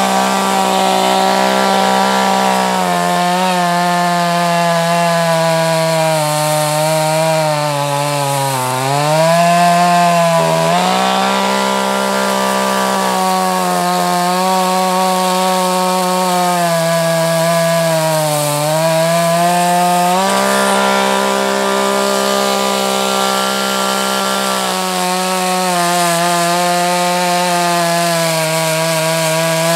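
Two-stroke chainsaw running at high speed while cutting up a felled red oak log, with a steady engine whine. The pitch dips briefly twice as the chain bogs down in the wood, then picks back up.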